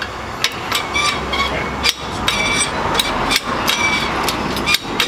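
Irregular sharp metallic clinks and knocks, each with a short ring, over a low steady hum: metal parts knocking together as an FA20 boxer engine hanging from a hoist is shifted and tilted to mate with the transmission.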